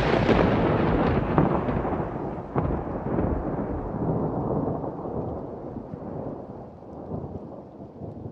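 A thunderclap: a sharp crack with crackling strikes in the first few seconds, then a long low rumble that dies away slowly.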